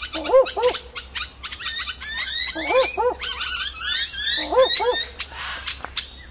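Barking owl giving its double 'woof-woof' bark three times, about two seconds apart, each note rising and falling in pitch; the recordist takes it for a call to a mate. Other birds chirp and call high in the background.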